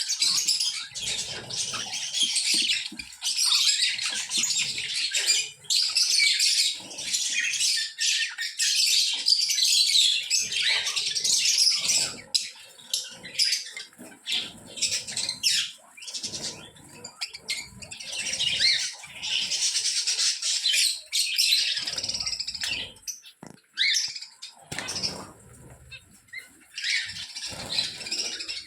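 Many small caged birds chirping and chattering at once, a dense overlapping twitter with the odd wing flap, rustle or bump.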